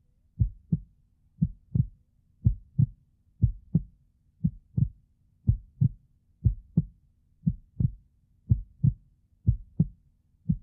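Heartbeat sound effect: slow paired low thumps, lub-dub, repeating about once a second.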